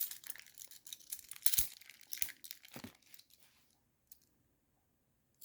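Plastic coin bag being torn open and crinkled by hand: a run of crackly rips and rustles for about three seconds.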